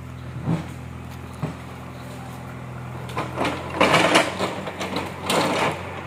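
A vehicle engine idling steadily with a low hum. Two louder rushing noises come over it, about three and five seconds in.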